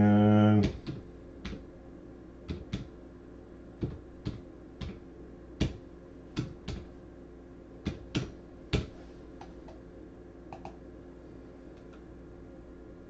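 Scattered single sharp clicks of computer keys and a mouse, unevenly spaced, as names are entered into a spreadsheet. Before them, a loud steady low hum cuts off sharply under a second in.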